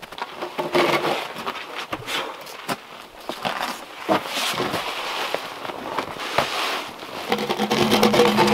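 Boots crunching and crackling over frozen snow and wood chips, with irregular sharp snaps, while a bark-covered log is handled. A low humming tone comes in near the end.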